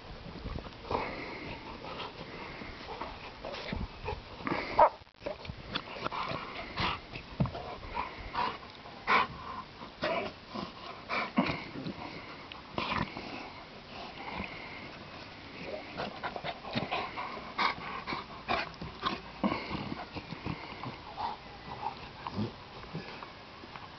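Two dogs play-fighting, a puppy and a large dog mouthing at each other, making a stream of short, irregular grunting and breathing noises, loudest about five seconds in.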